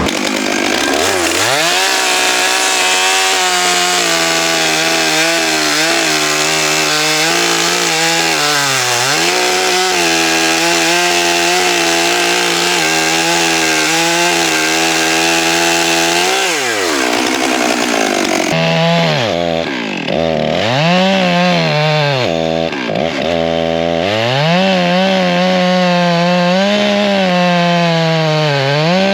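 Stihl 661 Magnum two-stroke chainsaw running near full throttle through a large oak log. Its engine pitch sags and climbs back several times as the chain loads up in the wood.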